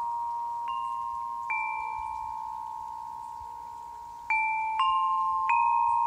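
Quartz crystal harp tuned in F to 432 Hz, its quartz tubes struck with a mallet: five struck notes, two in the first second and a half and three close together near the end. Each note rings on long and pure, the notes overlapping into a sustained chord, with a brighter overtone that fades after about a second.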